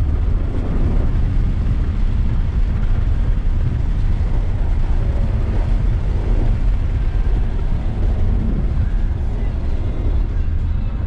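Car being driven hard: a heavy, steady low rumble of engine and road noise, with the engine pitch rising and falling through the middle.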